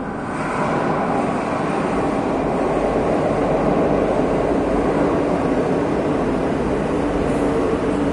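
Metro train running with a steady rumble and a hum underneath, growing louder over the first couple of seconds, then holding.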